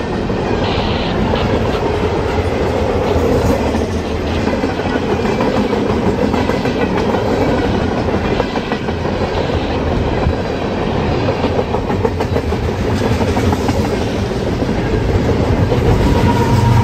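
Mixed manifest freight train passing close by at speed: steady rumble of the railcars' steel wheels on the rails with a running clickety-clack over the joints. A low hum builds near the end.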